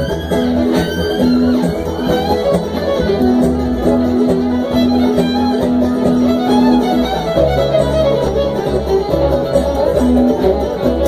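Live bluegrass string band playing an instrumental passage: acoustic guitar strumming and upright bass under a held, singing lead line that sounds like a fiddle.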